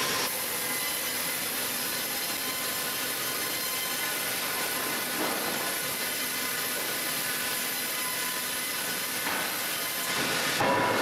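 A power saw cutting through wood, running steadily.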